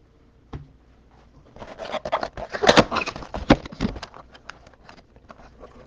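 Plastic wrapper of a trading card pack crinkling and tearing open: a dense run of crackles starting about one and a half seconds in, loudest in the middle, then thinning to scattered ticks.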